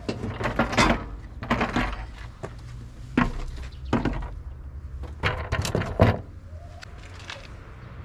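Metal knocks and clatter from the engine-cover panels and latches of a backhoe loader being handled and opened by hand, a handful of sharp knocks over a steady low rumble.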